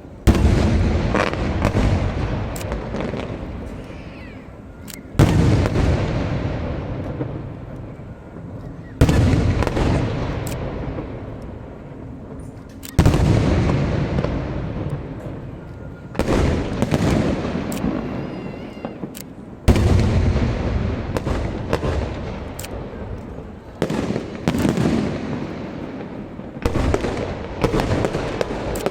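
Aerial fireworks shells bursting, about eight big booms three to four seconds apart. Each is followed by crackling that fades before the next.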